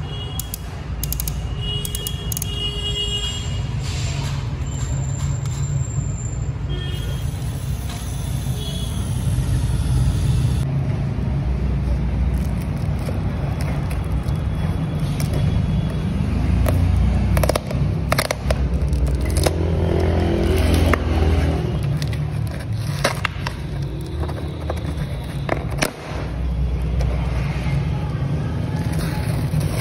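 Background music with a heavy, steady bass, over scraping and crackling of a paper courier parcel being handled and torn open.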